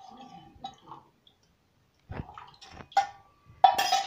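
Thin batter poured from a steel vessel into a pan, faint at first. After a short silence come several sharp clinks and scrapes of a utensil against the pan, the loudest near the end.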